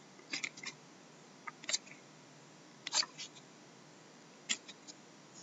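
Stiff trading cards being slid and flicked over one another as the front card of a hand-held stack is moved to the back: about four pairs of short clicks, one pair every second and a half or so.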